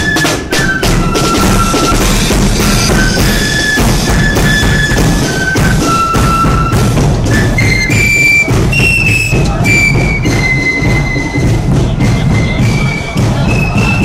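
Marching flute band playing a tune: a melody of held, high flute notes over a steadily beating bass drum and cymbals.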